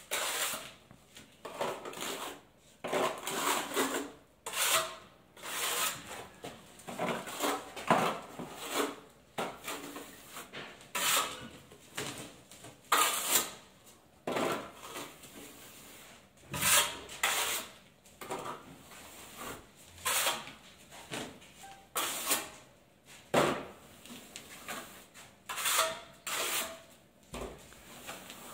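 Steel trowel scraping adhesive thinly over a mesh-reinforced ceiling base coat in repeated strokes, roughly one every second or two.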